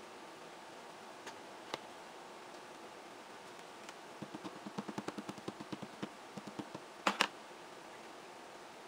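Quiet handling of a plastic embossing folder pressed on paper: a quick run of soft taps and rubs, then a sharp double crackle near the end as the stiff plastic folder flexes and is lifted off the sheet.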